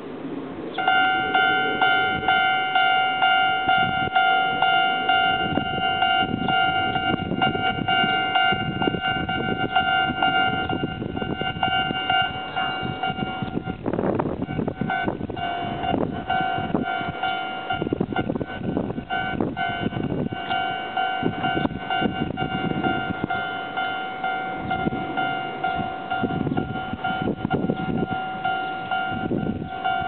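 Japanese railway level-crossing warning bell starts ringing about a second in, a steady repeating electronic ding at about two strokes a second, signalling that a train is approaching and the barriers are coming down. Wind buffets the microphone underneath.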